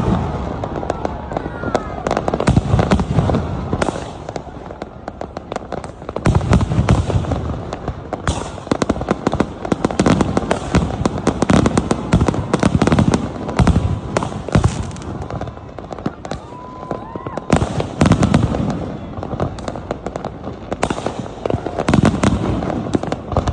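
Aerial fireworks display: heavy booming bursts every second or two, with dense crackling between them and a few short whistles.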